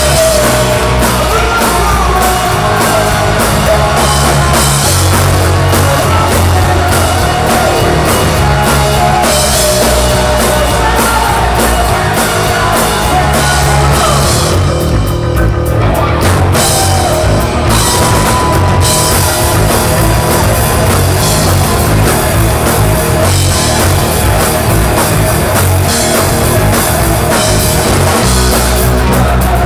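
A live rock band playing: two electric guitars, bass guitar and drum kit, with a male lead singer.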